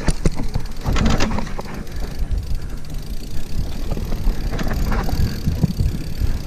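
Mountain bike descending a dirt singletrack, heard from a handlebar-mounted camera: a continuous low rumble of tyres and frame over the ground, with sharp rattling knocks from the bike over bumps, most strongly about a second in and again around five seconds in.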